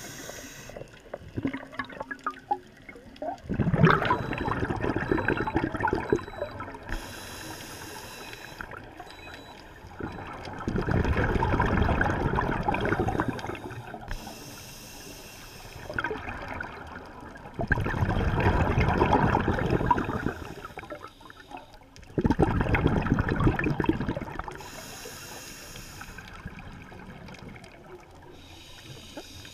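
Scuba diver breathing through a regulator underwater: a short hiss on each inhalation, then a loud bubbling rush as the exhaled air escapes, repeating about every seven seconds.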